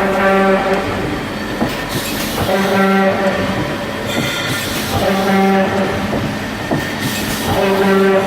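Sinico TOP1100 CNC tube-processing machine working through its automatic cycle: a steady mechanical clatter with knocks, and a humming whine just under a second long that comes four times, about every two and a half seconds, as the machine repeats its motion.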